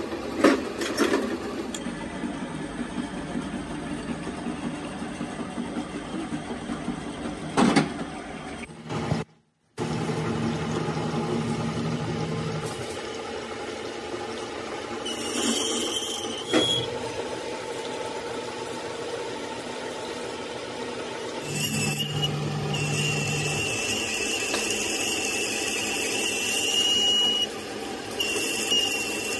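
Metal lathe running, its tool bit cutting into the end bore of a steel truck gearbox main shaft turning in a steady rest. A high-pitched squeal from the cut comes in briefly around the middle and again for about five seconds later on.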